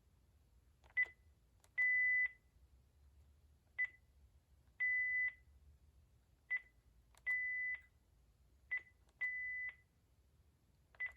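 Panasonic KX-TG5432M cordless phone handset beeping as its keys are pressed to delete phone book entries one by one with the clear button. Each deletion gives a short beep, then a longer one of about half a second with faint button clicks, repeating four times at a steady pace.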